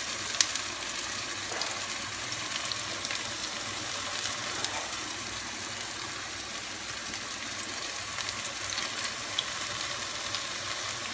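Veggie burger patties shallow-frying in hot oil in a wide pan: a steady sizzle with a few sharp crackles.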